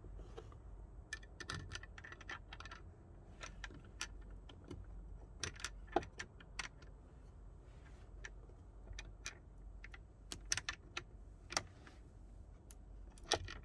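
Faint, irregular light clicks and clinks of small screws and a door speaker being handled and set into the speaker mount, some in quick little clusters.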